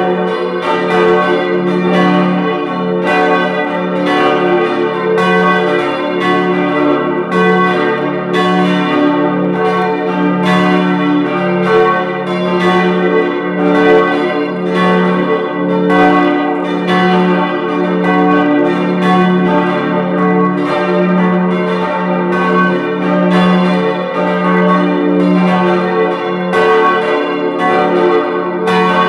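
Full peal of four church bells tuned d', f♯', a' and b' (h' in German naming), all ringing together. Their strikes overlap in an uneven, continuous sequence, each stroke ringing on under the next.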